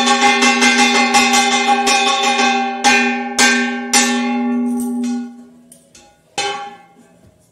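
A hand-held metal gong struck with a wooden stick: rapid, even strokes at about six or seven a second with a steady ringing tone. About three seconds in it slows to three spaced strokes, the ringing dies away, and one last strike comes near the end.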